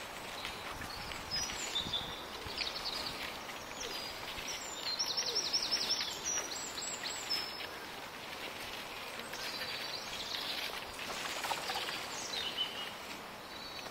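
Small songbirds singing and chirping over a steady outdoor hiss, with a rapid run of high notes about five seconds in and scattered chirps throughout.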